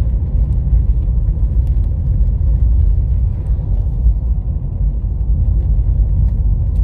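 Steady low rumble of a car driving along a paved road, heard from inside the cabin: engine and road noise.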